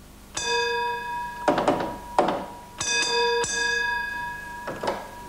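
Signal box block bells ringing a few separate strokes, each dying away slowly, with sharp knocks between them, as the signalmen exchange the call-attention and train-out-of-section bell codes.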